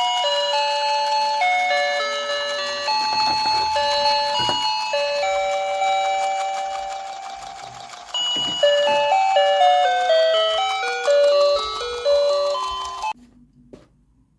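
A simple electronic melody of clear beeping notes, like a toy's sound chip, with a few faint plastic knocks under it; the tune cuts off abruptly about thirteen seconds in.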